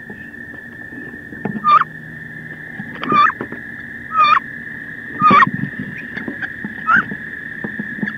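Two wood duck hens fighting inside a wooden nest box: a loud, squealing duck call five times, about once a second, over scuffling and sharp knocks of bodies and wings against the box walls.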